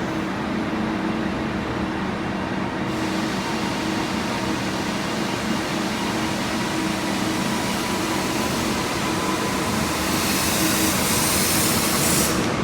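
A train at the platform, its engine or traction equipment humming steadily with a constant low drone. A hiss joins about three seconds in and grows louder near the end.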